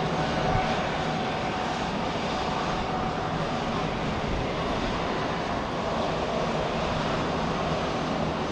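Airbus A380-800 jet airliner's four Rolls-Royce Trent 970 turbofans at takeoff climb power: a steady rushing jet noise as the aircraft climbs away, with a faint whine that fades out over the first few seconds.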